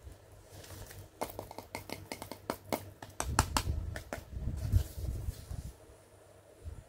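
Stiff card playset being handled: a quick run of light clicks and taps as it is flexed and fingered, then dull thumps of handling against the table, the loudest near the end.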